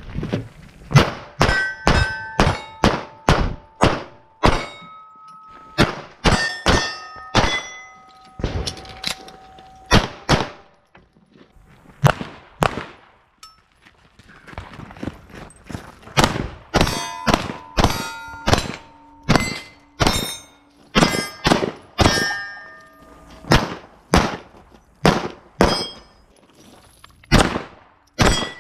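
Dozens of pistol shots fired in quick strings, many followed by the ringing of struck steel targets, with a lull of a few seconds near the middle.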